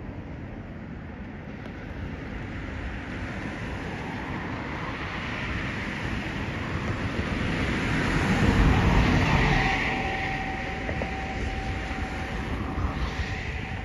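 Road traffic: a passing vehicle's rumble and tyre noise swell slowly to a peak about two-thirds of the way through, then fade, leaving a faint steady whine.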